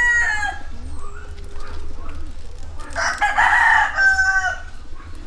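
Rooster crowing: the falling tail of one crow at the very start, then a full, harsh crow about three seconds in that ends on a held note.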